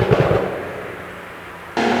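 TECHART GTstreet R's twin-turbo flat-six popping and crackling on the overrun: a quick burst of bangs from the exhaust at the start, then the engine note fading away. Near the end the engine sound comes back abruptly, running loudly.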